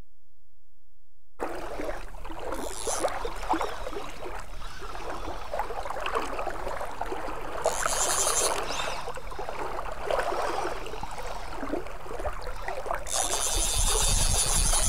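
Water sloshing and splashing around a wading angler, with the fly reel's drag buzzing three times as a hooked fish strips line off. The last buzz, near the end, is the longest and loudest. It starts after a second and a half of silence.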